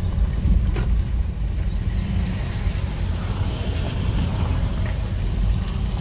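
Low, steady rumble of a car driving slowly over a rough dirt road, heard from inside the cabin: engine and tyre noise.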